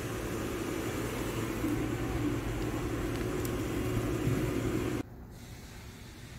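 A steady low machine hum with hiss underneath, which cuts off abruptly about five seconds in and leaves a quieter, even background noise.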